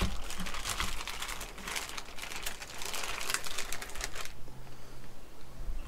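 Dense crackling rustle made of many small rapid clicks, like something being handled close by, stopping about four seconds in.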